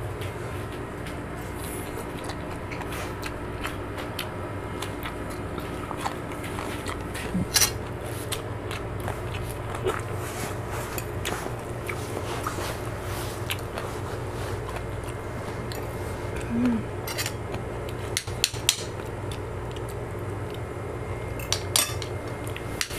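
Spoon and fork clinking and scraping on plates as food is served and eaten, with a few scattered sharp clicks over a steady low hum.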